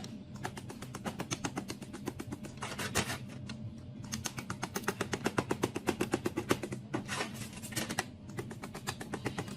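A rapid run of crisp clicks or taps, about ten a second, breaking off briefly twice, over steady background music.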